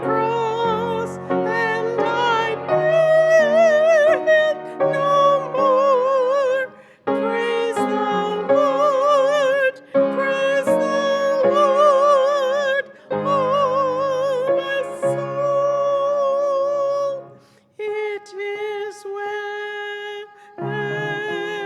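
A woman singing a slow hymn with wide vibrato, holding long notes over piano accompaniment, with brief pauses between phrases.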